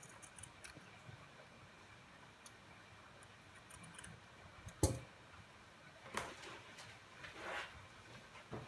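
Small scissors snipping felt: faint clicks of the blades, one sharper clack about halfway through, then a few soft rustles and knocks as the felt and scissors are handled.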